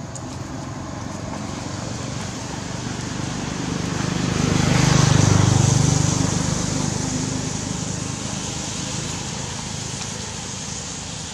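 Motor vehicle passing by: its engine and road noise swell to a peak about five seconds in, then fade away.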